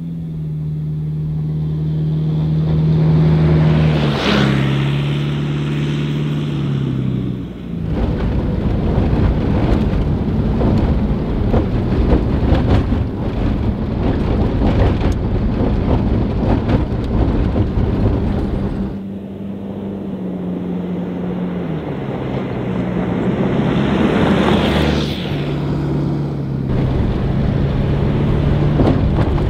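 A 1991 Volkswagen Westfalia van's flat-four engine, driven along a sandy dirt road. It passes close by twice, its pitch dropping as it goes by. In between, the ride is heard from inside the cab: a dense noise of engine, wind and road rattle.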